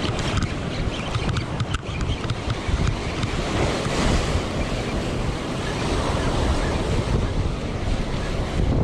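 Surf breaking and washing over a rocky shoreline, with wind buffeting the microphone in a steady low rumble.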